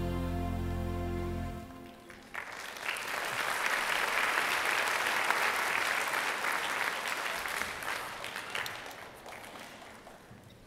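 Music ends about a second and a half in, then an audience applauds; the clapping builds quickly, holds, and slowly fades away near the end.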